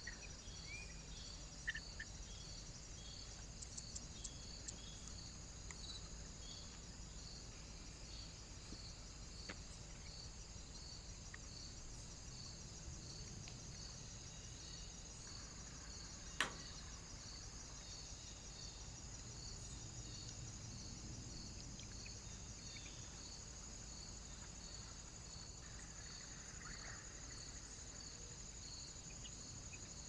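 Faint, steady insect chirping: a continuous high trill with regular pulses a little under a second apart. A single sharp click comes about sixteen seconds in.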